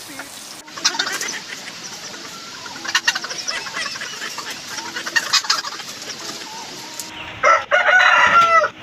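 Native chickens clucking and squawking in a bamboo coop while one is being caught, with a loud run of calls near the end.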